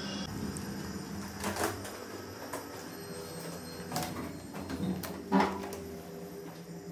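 A few soft knocks and clicks, irregularly spaced, over a faint steady hum in a quiet room; the loudest comes about five and a half seconds in.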